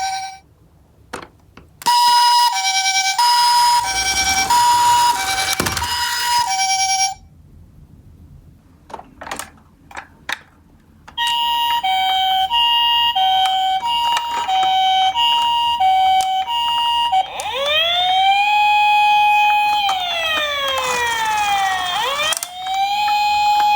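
Electronic sirens of toy ambulance minicars sounding one after another. A two-tone hi-lo siren cuts off about half a second in, a second hi-lo siren runs from about two to seven seconds, and a third from about eleven to seventeen seconds. Then a wailing siren rises, holds and falls, and starts rising again near the end, with a few sharp clicks in the gaps.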